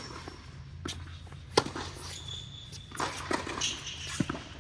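A tennis ball being hit and bouncing: a few sharp knocks, the loudest about a second and a half in, with high squeaks of shoes on the court.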